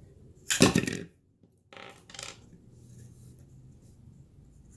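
A sharp metallic clatter about half a second in, as small metal parts of a fishing-line spooler (a spring and washers) land on a wooden table, followed by a couple of softer knocks from handling.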